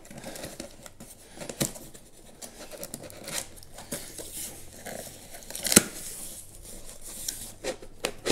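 Packing tape being cut and torn open along the top of a large cardboard shipping box, with cardboard scraping and rustling in irregular short strokes and one sharp rip about two-thirds of the way through.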